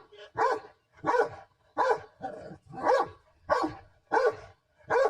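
A dog barking over and over, about eight barks evenly spaced a little over half a second apart.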